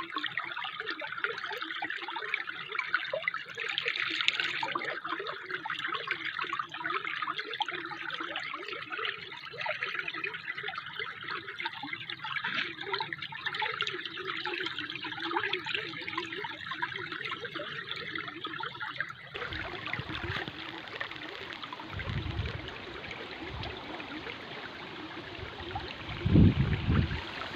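Water trickling and flowing steadily, like a small stream. About two-thirds through the sound cuts to a broader rushing hiss, with low rumbling gusts of wind on the microphone near the end.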